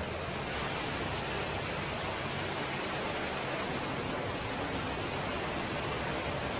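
Underground cave stream flowing: a steady rush of water.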